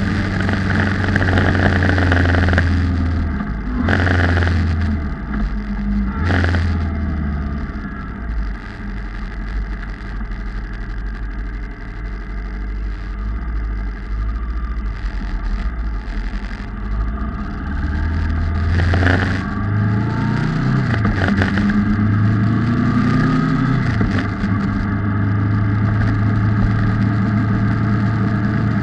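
Kawasaki ER-6F's 650 cc parallel-twin engine on the move, with wind rushing over the camera microphone. The engine note dips briefly twice in the first seconds, stays lower through the middle, then climbs in pitch in steps as the bike accelerates through the gears a little past halfway, before settling to a steady cruise.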